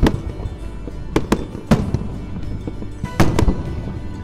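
Fireworks exploding in a display, with about seven sharp bangs at irregular intervals, two of them close together near the end. Background music plays underneath.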